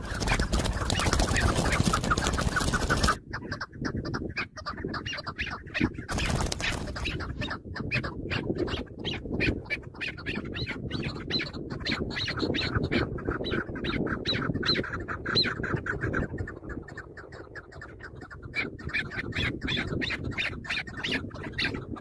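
Chukar partridge calling: long runs of rapid, clucking notes, several a second, that carry through most of the stretch. A loud rush of noise overlays the calls for the first three seconds.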